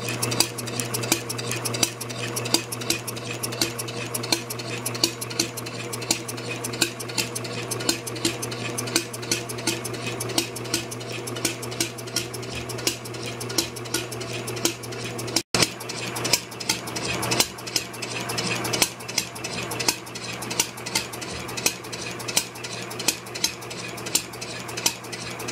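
Homemade propane-fuelled slide-valve flywheel engine being spun by an electric motor through a rope belt, clattering steadily over a constant hum, with a regular sharp tick a little more than once a second. The engine is not yet running properly on its own.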